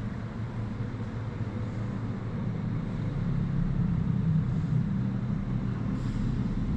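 Steady low rumbling background hum, swelling slightly about halfway through.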